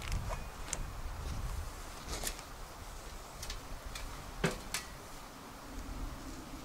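Scattered light clinks and knocks of a metal stove chimney pipe being fitted and adjusted in a canvas tent's stove jack, a few with a short metallic ring, the sharpest about four and a half seconds in.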